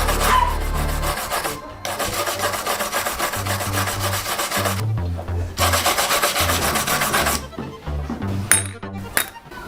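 Rapid back-and-forth hand rubbing or scraping strokes on a bicycle part, in three spells broken by short pauses, with a few sharp clicks near the end. Background music with a bass line plays underneath.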